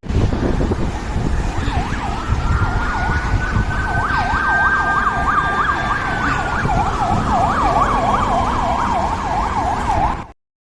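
Emergency vehicle siren, a fast yelp sweeping up and down about three times a second alongside a steadier, slowly rising then falling tone, over a heavy low rumble. It cuts off suddenly near the end.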